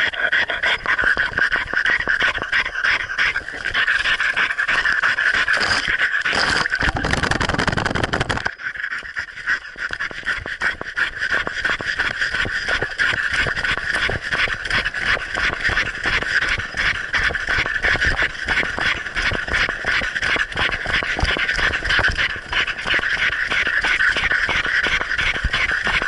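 A dog panting fast and hard, heard from an action camera strapped to its own muzzle. About seven seconds in, a loud rush of noise covers the panting for a couple of seconds.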